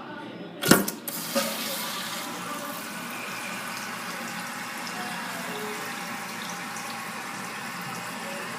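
1966 Crane Radcliffe toilet being flushed through its Mansfield Imperial flush tower: a sharp clack from the flush mechanism just under a second in, then water rushing steadily through the tank.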